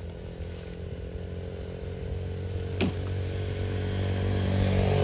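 A motor vehicle's engine running steadily and growing louder toward the end, as if approaching. A single sharp click comes about three seconds in.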